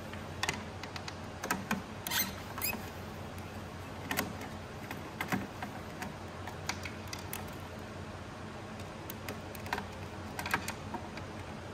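Scattered light clicks and taps of a screwdriver working the housing screws out of a Sparkular II spark machine, with the loose screws set down, over a low steady hum.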